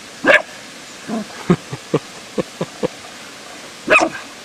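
Cairn terrier barking: one sharp bark just after the start, then a run of short, quieter woofs, then another sharp bark about four seconds in.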